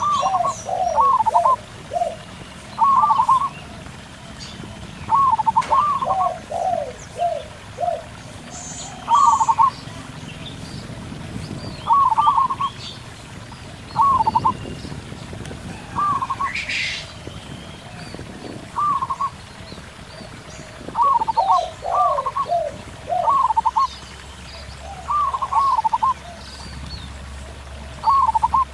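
Zebra doves (perkutut) cooing in short, repeated high phrases, answered by the lower coos of spotted doves (tekukur), over the steady murmur of a small rocky stream. A brief sharp chirp from another bird cuts in a little past halfway.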